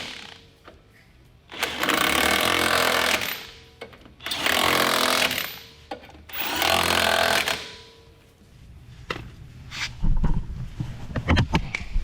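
Impact wrench hammering on wheel lug nuts in three bursts of about a second and a half each, then a few knocks and clunks near the end.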